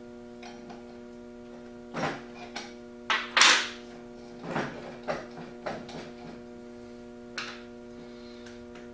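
Scattered clicks and knocks of a prop wrench and carbon-fibre propellers being handled while the prop nuts are undone and the props taken off a DJI Phantom quadcopter. The loudest knock comes about three and a half seconds in. A steady electrical hum runs underneath.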